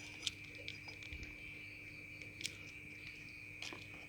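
Steady high-pitched insect trilling, with a few faint clicks about a third of a second in, about two and a half seconds in, and again near the end.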